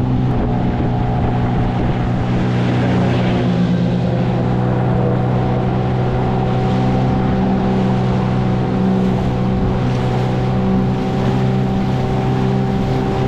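Outboard motor driving a small metal boat at speed, a steady, even drone.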